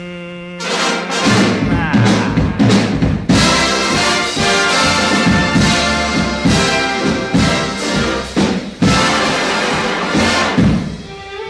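Background music: a band with brass and orchestra playing, with no singing.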